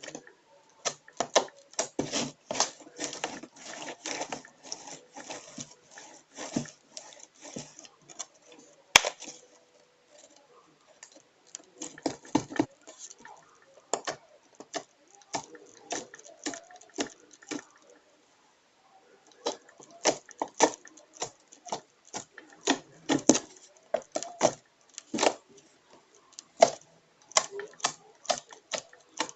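Homemade slime being squeezed and worked by hand, giving a quick, irregular run of small sticky clicks and pops, with a brief pause about two thirds of the way through.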